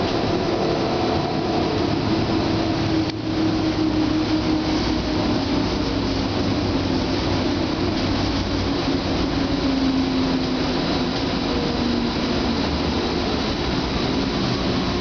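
Siemens Combino Be 6/8 tram running, heard inside the passenger cabin: a steady rumble of wheels on rails with a whine that slowly falls in pitch. The noise dips briefly about three seconds in.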